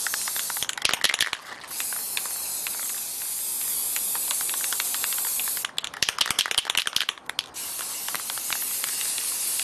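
Aerosol can of Plasti-kote gloss spray paint spraying in long steady hisses as a light coat goes on. Twice the hiss stops for a quick rapid rattling of the can, about a second in and again just past the middle.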